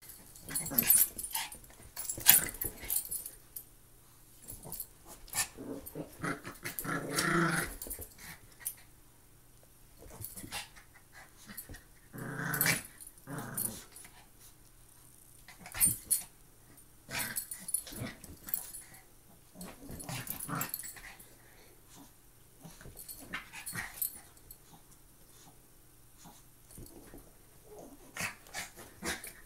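Two Maltese dogs play-fighting, growling in irregular short bouts with pauses between, the longest growls a few seconds and about twelve seconds in.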